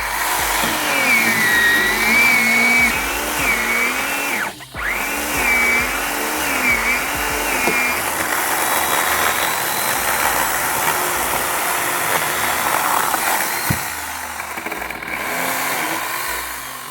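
Chainsaw running while cutting, its engine pitch rising and falling over and over in the first half, with a brief break about four and a half seconds in.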